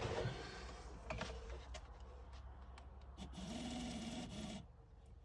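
Small electric motor of an N gauge TRIX Britannia model locomotive running on 10 volts with a steady whir, starting a little over three seconds in and stopping about a second later, after a few light clicks. The motor is freshly oiled and runs smoothly.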